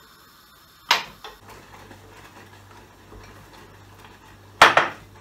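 Two sharp clinks of a metal whisk against a glass mixing bowl of pancake batter, about a second in and again near the end, over a faint steady hum.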